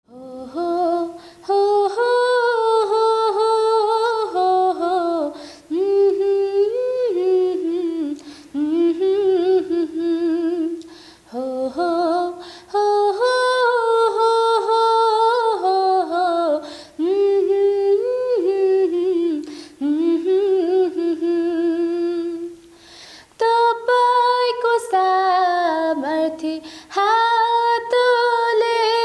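A woman singing a Nepali Christian song solo and unaccompanied, in phrases of a few seconds with short breaths between them.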